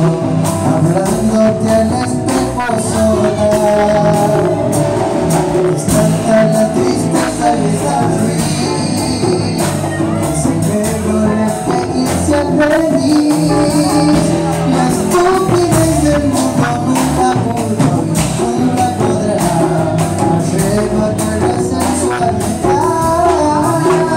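Live band playing: two electric guitars, one solid-body and one hollow-body archtop, over congas and a cymbal.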